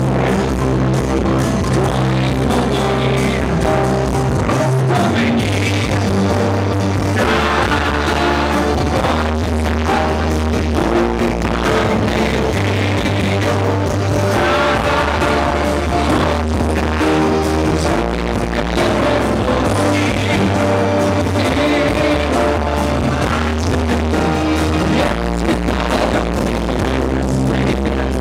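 A live rock band playing at full volume through a club PA, with steady bass and guitar and a voice singing at times.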